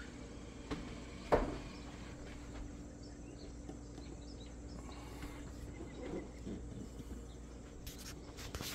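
Faint background with a steady low hum, broken by a single sharp click about a second and a half in and a few soft clicks near the end.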